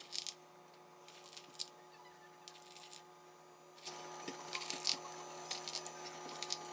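A steady low hum with several overtones, with scattered light clicks and taps that grow busier about four seconds in.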